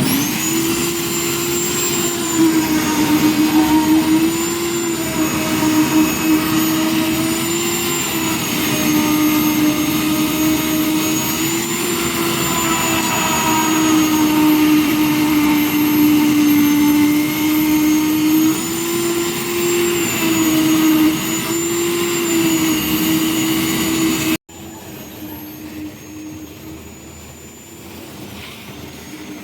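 Engine of a concrete lift mixer machine running steadily, its whining tone wavering slightly in pitch. About five seconds before the end the sound drops abruptly to a much quieter level and carries on.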